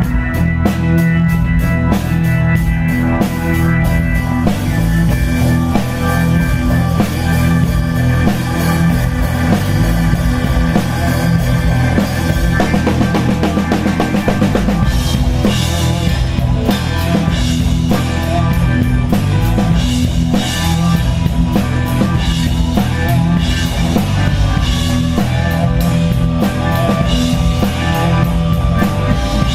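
Live blues-rock band playing an instrumental passage, with the drum kit to the fore, kick and snare driving a steady beat under sustained chords.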